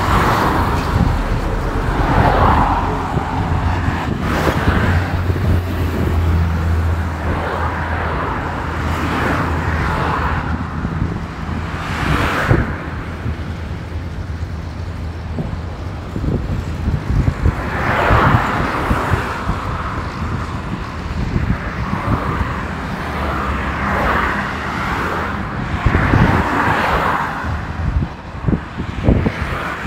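Road traffic noise from a moving vehicle on a highway: a steady rumble of engine and tyres, with the hiss of vehicles swelling past every few seconds.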